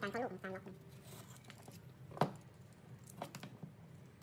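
Utility knife trimming Scotch tape stuck over a knife blade on a cutting mat: light scratchy cutting and tape noise with small clicks, and one sharp click a little over two seconds in.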